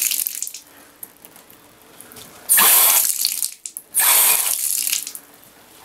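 Water rushing from a bathtub faucet spout and shutting off cleanly: the flow cuts off within the first half second, then is turned on and off twice more in bursts of about a second. Each time the water stops completely, the sign that the newly repaired faucet valve now seals.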